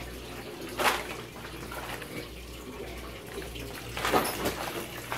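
Steady trickling and splashing of water from an aquaponics system, over a constant low hum. Two brief rustles, about a second in and about four seconds in.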